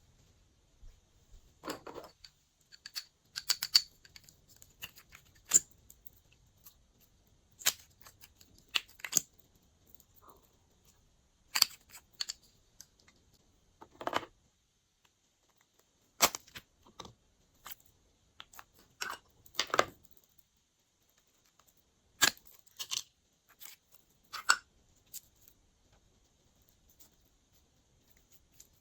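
Glossy slime being pressed and mixed by hand: irregular short sticky pops, clicks and squelches, a dozen or so spaced a second or two apart.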